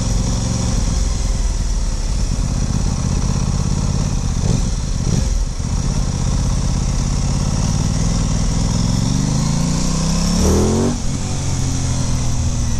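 Aprilia Tuono 660's parallel-twin engine under way, rising steadily in pitch as the bike accelerates, then dropping suddenly at a gear change about eleven seconds in.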